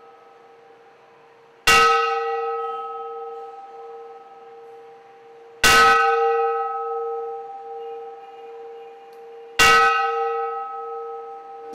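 Large hanging temple bell struck with a metal striker three times, about four seconds apart. Each strike rings on and fades slowly, its low hum pulsing as it dies away.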